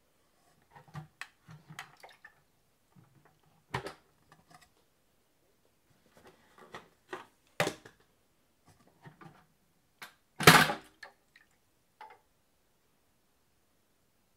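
Scattered clicks and knocks of hard parts being handled, with a louder clunk about ten and a half seconds in; no motor is running.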